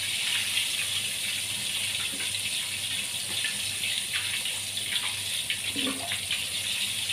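Hot oil in a wok sizzling steadily as deep-fried chicken pieces are lifted out with tongs, with a few light clicks. The chicken is fried crisp and the heat is turned down.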